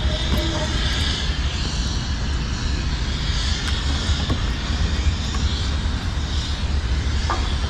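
Wind buffeting the microphone in a steady low rumble, with a few faint ticks.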